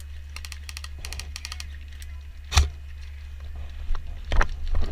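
Airsoft guns firing: quick runs of faint distant shots early on, then single sharp shots, the loudest about two and a half seconds in and a few more near the end.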